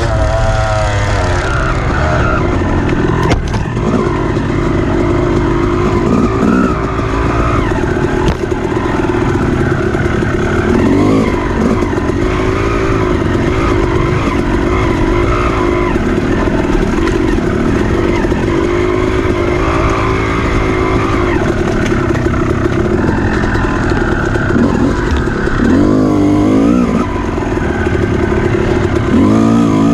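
Dirt bike engine running hard with the throttle worked on and off, its pitch rising and falling; quick rev sweeps about a second in and twice near the end.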